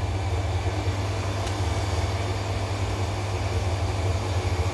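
Steady low mechanical hum with an even background whoosh, unchanging throughout.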